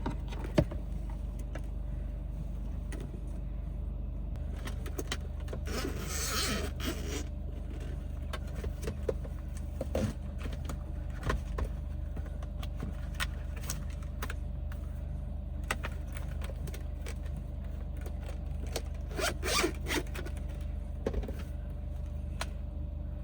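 Small handling sounds (scattered light clicks and two brief rustling scrapes, about six seconds in and near twenty seconds) over a steady low hum.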